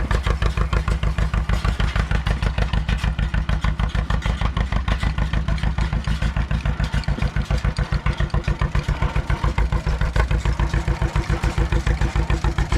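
Tractor engine running close by with a steady, rapid chugging beat.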